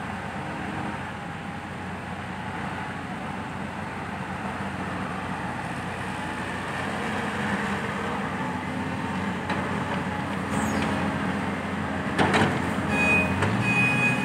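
Diesel engines of dump trucks and an excavator running steadily and slowly growing louder. There is a knock about twelve seconds in and a short high tone twice near the end.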